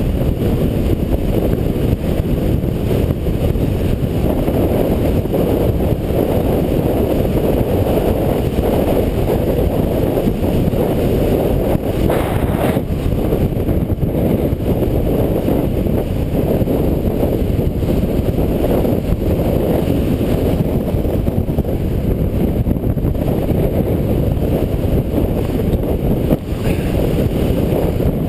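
Steady low rumble of wind and a snowboard running over packed snow, picked up by a GoPro action camera's microphone during a fast descent. A couple of brief sharper rasps come about halfway and near the end.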